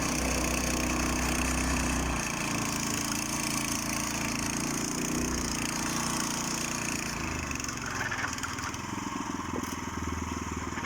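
Small motor scooter engine running under load as it tries to push through mud, its note dropping about two seconds in.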